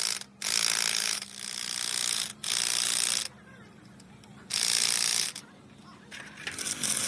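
Power wrench run in four bursts of about a second each, with short pauses between, the third pause longer.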